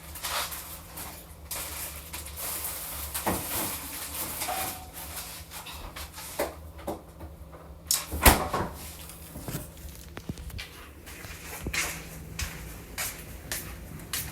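Items being handled and packed up while a fridge is cleared out: scattered knocks, clicks and rustles, with one louder knock about eight seconds in, over a steady low hum.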